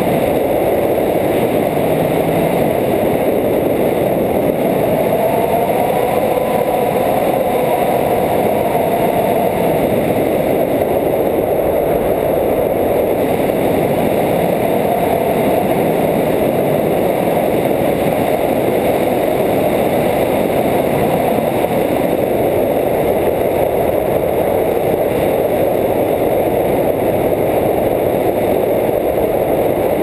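Steady wind rushing over an action camera's microphone from a flying tandem paraglider's airspeed, a loud even roar with a faint wavering whistle in it.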